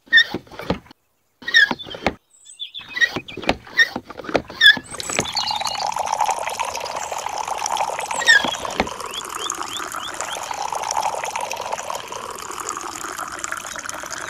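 Miniature hand pump worked by hand: a run of clicks and short squeaks from the handle strokes for the first few seconds. Then water pours steadily from the spout down the chute into a small brick pool.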